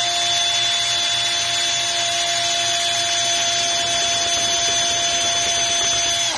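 Power drill running steadily at full speed with a constant whine, spinning a card stock disc on its Phillips screwdriver bit. It is switched off right at the end and stops quickly.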